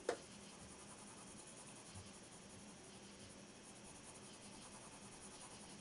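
Faint scratching of a graphite pencil shading on sketchpad paper, with one sharp click right at the start and a soft low bump about two seconds in.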